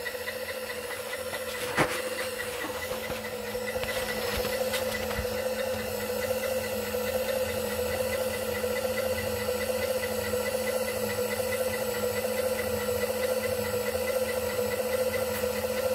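Bridgeport-type power feed motor running steadily as it drives the milling machine's knee on its Z-axis, a steady hum, with a single click about two seconds in.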